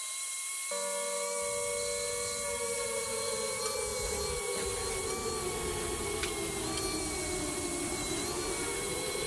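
Angle grinder working on a rusty steel exhaust pipe: a steady high motor whine. About a second in, a second, lower whine joins it, with grinding noise beneath; it sinks slowly in pitch and rises again near the end.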